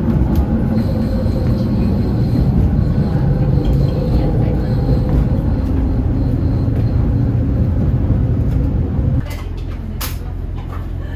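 Kawasemi Yamasemi KiHa 47 diesel railcar heard from inside the passenger cabin, a steady low running rumble as it comes into the station, with a faint high squeal early on. The rumble drops off abruptly about nine seconds in, leaving a quieter hum with a few sharp clicks.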